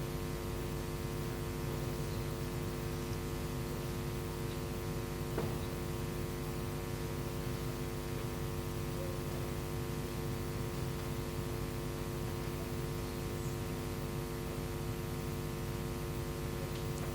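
Steady electrical mains hum, a stack of unchanging tones over a low rumble, with one faint click about five seconds in.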